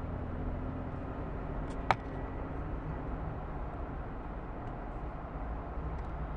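Steady low rumble of a car's engine and tyre noise, heard from inside the cabin while driving, with one sharp click about two seconds in.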